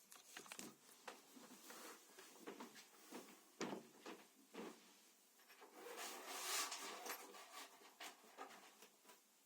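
Faint handling noise: scattered clicks and knocks of objects being moved about, with a louder rustle about six seconds in.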